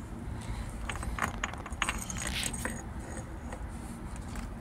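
Scattered light clicks, knocks and scrapes as green PPR plastic water pipe and cables are handled, over a steady low rumble.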